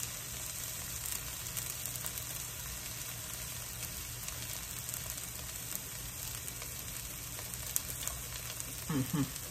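Shredded trumpet-mushroom filling frying in a pan, a steady sizzle.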